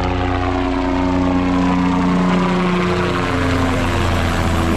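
Helicopter running loudly nearby, a dense engine and rotor whine whose tones slide slowly down in pitch.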